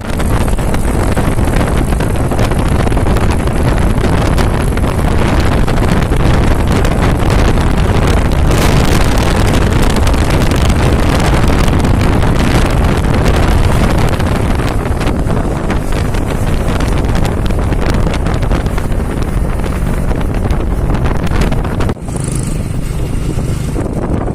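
Vehicle on the move, its engine and road noise mixed with heavy wind buffeting the microphone and constant crackle, dipping briefly near the end.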